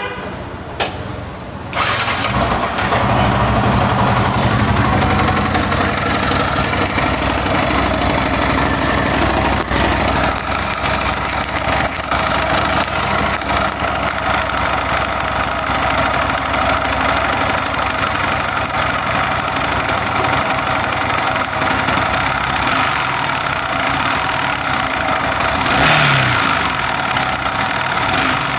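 Yamaha R15 V3's 155 cc single-cylinder engine starting about two seconds in, then idling steadily with a short rev near the end. It runs with the abnormal knocking sound that the mechanic puts down to too much free play in loose internal parts, which makes it jerk and run unevenly at low rpm.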